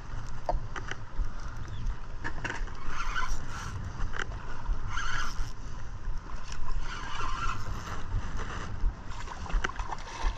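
Spinning reel being cranked to bring a hooked char to the boat, with short clicks over a steady low rumble of wind and water around a small boat. A splash near the end as the fish reaches the net.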